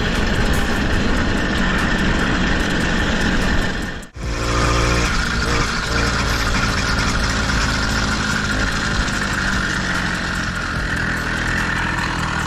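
Small gasoline engine of a motorized bicycle running steadily under way, an engine still being broken in. The sound breaks off briefly about four seconds in, then carries on.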